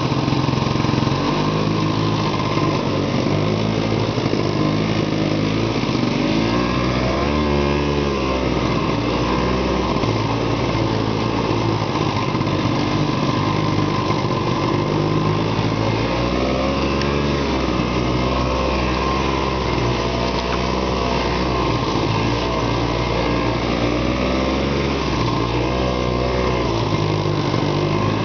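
Arctic Cat Panther snowmobile engine running under way, its pitch rising and falling several times as the throttle is worked.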